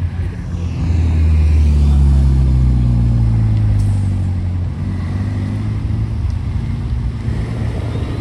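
A car's engine running as it drives slowly past: a steady low engine note that grows louder about a second in and fades after the middle, with traffic continuing underneath.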